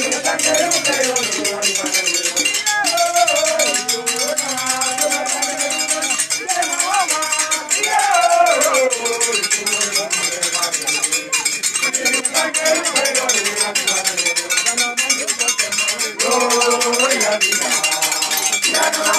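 Group of voices singing to a fast, steady beat struck on a metal bell.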